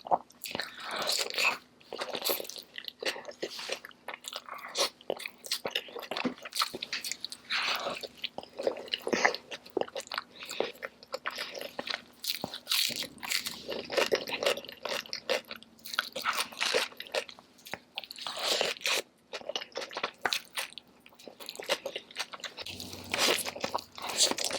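Close-miked eating sounds: a person biting into and chewing a large burrito, with many irregular sharp crackles and clicks throughout.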